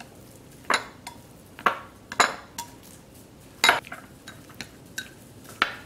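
Chopsticks clinking against the bowls while stirring seasoned ground pork and chopped shrimp. About five sharp clinks come at uneven intervals.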